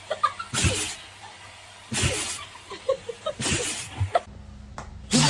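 A puppy sneezing again and again: about four short, sharp sneezes roughly a second and a half apart.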